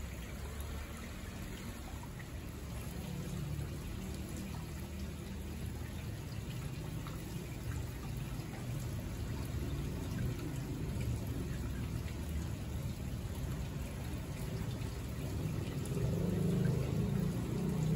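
Steady trickling and lapping of water, slowly growing a little louder.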